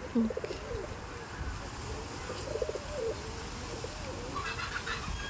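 Domestic pigeons cooing, a low bubbling coo repeated several times, with a few short higher bird chirps near the end.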